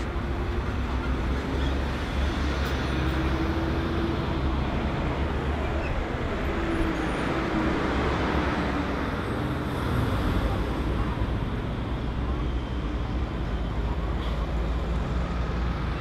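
Steady city traffic with cars and buses driving past. An engine hum stands out over the roar of traffic for the first several seconds.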